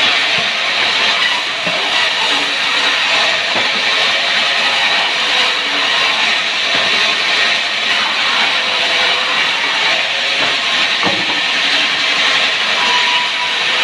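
Wood saw running steadily, a loud, even noise with no breaks.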